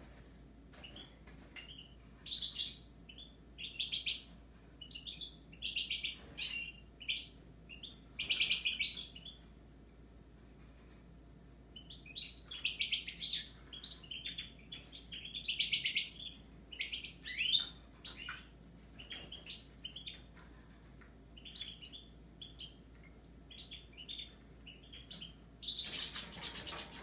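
Caged goldfinches and Raza Española canaries singing: runs of bright, fast twittering phrases broken by short pauses, with a louder burst near the end.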